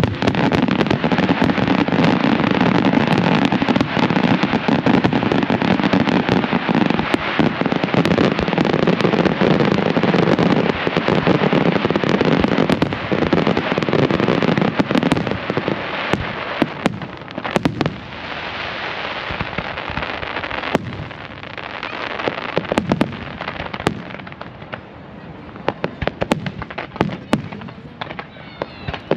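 Fireworks display in a dense barrage of bursts and crackling, thickest through the first half, then thinning to more scattered, separate bangs toward the end.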